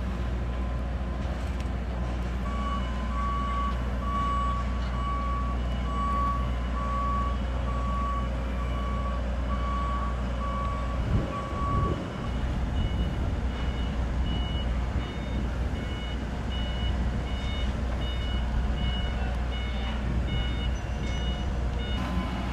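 Vehicle reversing alarms beeping over a steady low rumble. A lower-pitched alarm beeps about one and a half times a second, then stops about halfway, and a higher-pitched alarm takes over.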